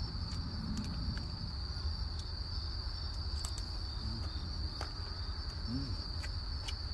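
Crickets trilling steadily, one continuous high-pitched ring, with a few faint clicks and a brief low murmur of a voice.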